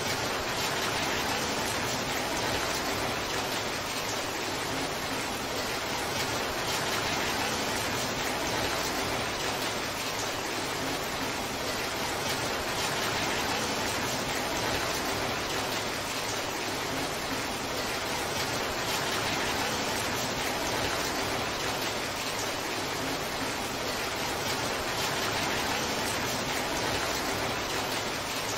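Torrential downpour: heavy rain falling steadily as an even, unbroken hiss.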